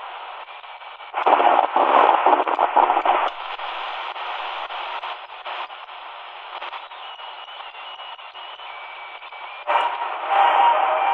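XHDATA D-219 portable radio's speaker playing shortwave hiss while being tuned down across the 6.4 to 5.6 MHz band. Louder signals break through about a second in and again near the end, and thin whistles come and go in between.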